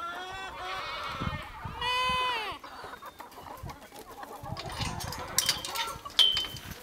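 Chickens clucking and calling, with one long drawn-out call about two seconds in. In the second half come scattered clicks and, a little after six seconds, a sharp metallic clack, the loudest sound here, as the wire-mesh coop door is unlatched and pulled open.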